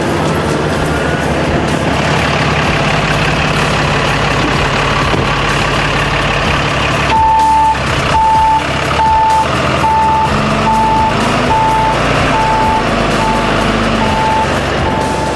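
A vehicle engine running steadily; about seven seconds in, a reversing alarm starts beeping over it, about two beeps a second, continuing to the end.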